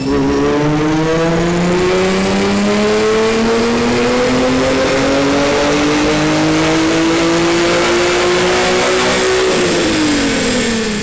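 Nissan 350Z's 3.5-litre V6 at wide-open throttle on a chassis dyno, breathing through a Bassani True Dual stainless steel exhaust with X-pipe. The engine note climbs steadily in pitch for about nine and a half seconds, then drops away near the end as the throttle is lifted and the run winds down.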